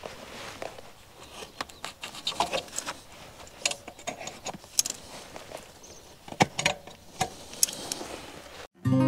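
Irregular metal clinks and rattles of fittings at a caravan's drawbar as a stone stomper guard is unhooked, with a few sharper clacks about five and six and a half seconds in.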